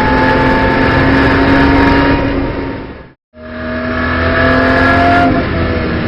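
In-car sound of a BMW M240i Racing Cup's turbocharged straight-six pulling under load, its revs climbing slowly. It fades out to a moment of silence about halfway through and fades back in, and the engine pitch drops near the end.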